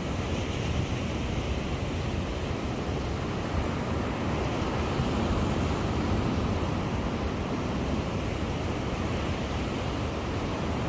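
Sea surf washing steadily onto a sandy beach, with wind rumbling on the microphone.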